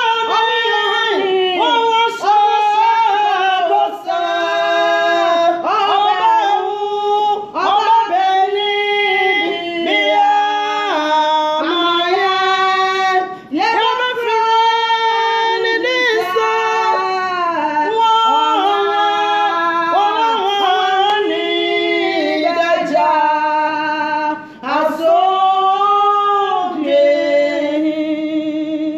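Women singing a worship song loudly, without instruments, in long held and bending notes with brief breaks for breath.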